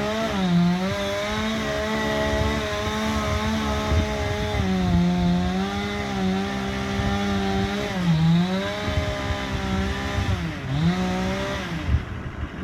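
Chainsaw running at high revs through a felling cut in a cottonwood trunk, its engine note dipping and recovering several times as the chain bites into the wood, most often near the end.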